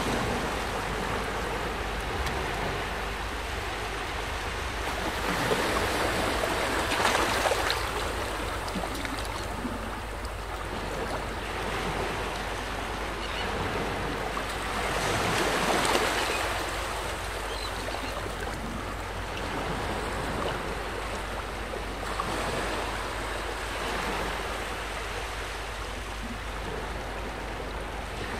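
Shoreline ambience of wind and lapping water on calm bay water: a steady rush that swells and eases about every eight or nine seconds.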